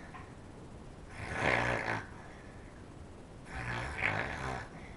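A child's acted snoring: two long, loud snores about two and a half seconds apart, with quiet breathing between.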